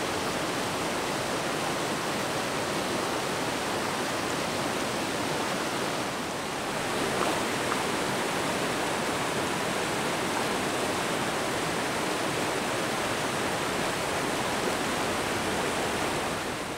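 Stream water swirling and pouring down into a funnel-shaped whirlpool pit dug in a shallow stream bed, a steady rushing sound.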